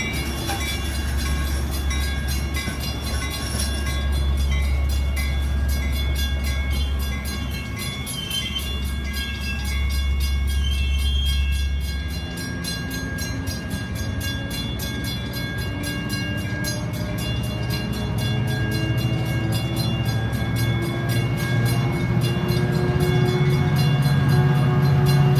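Metra bilevel commuter cars rolling past at speed, a steady rumble of wheels on rail. From about halfway through, a pitched diesel engine note rises slowly and grows louder as the locomotive at the rear of the train draws closer.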